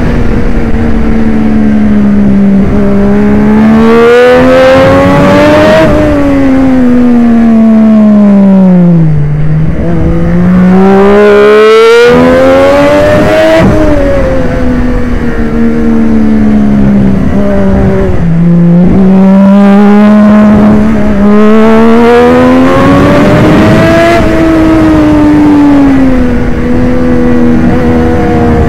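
2013 Triumph Daytona 675's three-cylinder engine at racing pace, heard from on the bike. Its pitch climbs for several seconds under acceleration and falls away as it slows, three times over.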